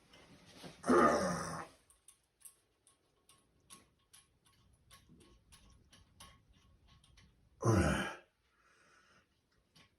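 A man's heavy sigh about a second in and another near the end, with faint light clicks ticking in between.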